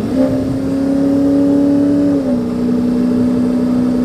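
Lifted Ford F-250 6.0 Powerstroke diesel pickup driving, with a steady droning hum that drops slightly in pitch about two seconds in.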